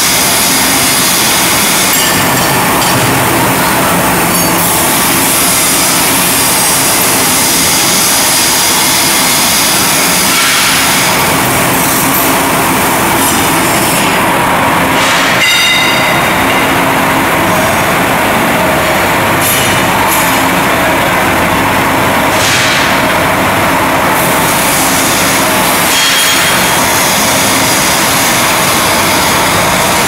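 Loud, steady noise of heat-treatment plant machinery: a constant hissing rush with faint high whines that come and go.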